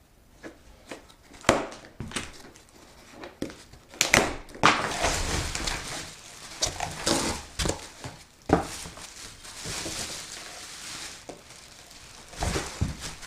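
Packaging being pulled off a new radiator: plastic wrap and packing material crinkling and rustling, with scattered knocks and a few thuds as it is handled.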